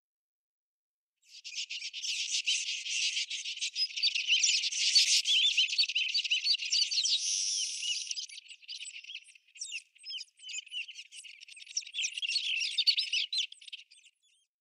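Small birds chirping and twittering in a dense, busy chorus of high, quick calls. It starts suddenly about a second in, thins out past the middle, and stops just before the end.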